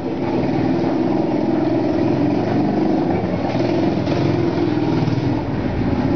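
A motor vehicle engine running steadily at an even pitch.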